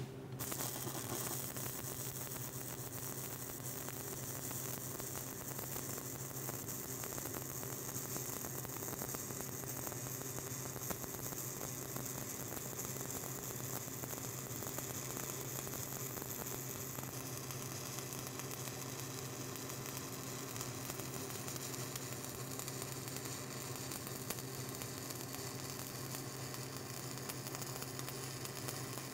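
Steady crackling sizzle of a stick-welding arc as a 7018 low-hydrogen electrode is run along a butt joint on steel plate, with a steady low hum underneath.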